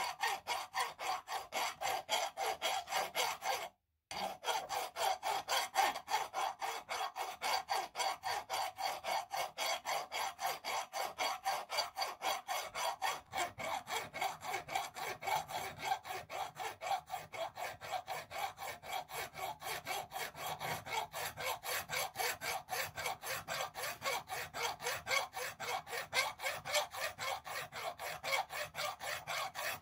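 Hand file rasping across a rusty twisted iron axe handle in quick, even back-and-forth strokes, scraping off the rust. The strokes break off briefly about four seconds in, then carry on at the same pace.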